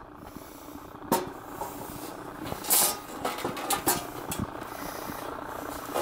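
A sheet-metal breaker box cover being handled and taken off: several light knocks and clicks, with a short scrape a little before halfway.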